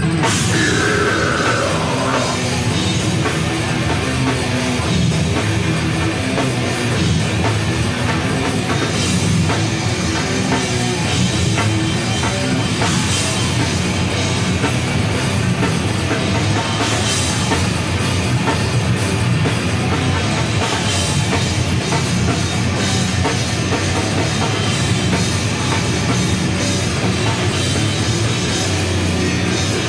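Heavy metal band playing live: distorted electric guitar over a drum kit, loud and continuous. Just after the start, a high note slides downward.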